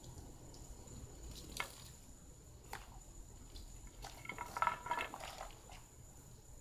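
Garden hose spray wand rinsing water over a car, faint and splashy, with a couple of sharp clicks and a brief burst of high chirping sounds about four seconds in.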